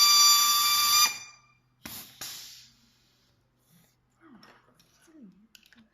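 FFX-M12 pneumatic tool running with a steady high whine and air hiss, which cuts off about a second in. It is then triggered twice in quick short blips of hissing air. This is the tool being test-run after its O-rings were replaced and greased.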